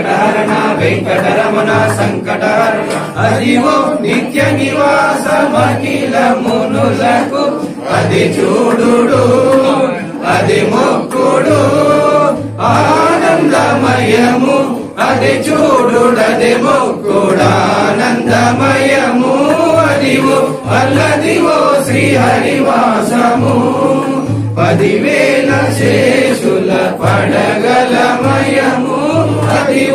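Men singing a Hindu devotional hymn together into microphones, with a steady low beat underneath.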